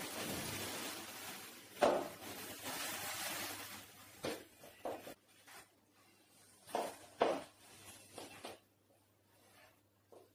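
Leather and clothing rustling and rubbing as black over-the-knee leather boots are pulled on and tugged into place. Scattered sharp knocks of the boots' stiletto heels on a wooden floor come through it.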